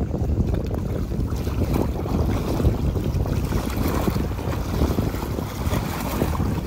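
Small lake waves lapping and splashing against shoreline rocks, with wind buffeting the microphone.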